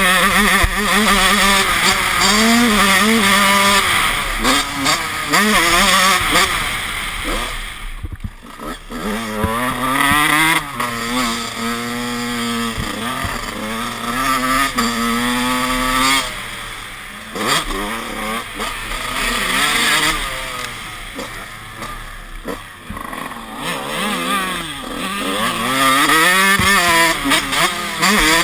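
Honda CR 125 two-stroke motocross engine with a Mugen cylinder and FMF Fatty exhaust, heard from the rider's helmet camera, revving up and falling off again and again through the gears. The throttle is shut off sharply about eight seconds in, the engine runs lower and quieter for a stretch in the middle, then revs hard again near the end.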